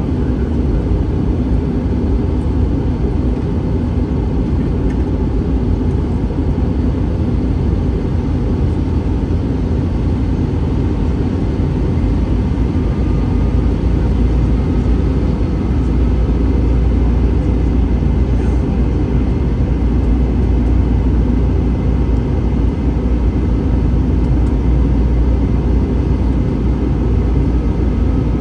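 Steady cabin noise inside an Airbus A321 airliner: a low rumble of engines and airflow, which grows a little louder about sixteen seconds in.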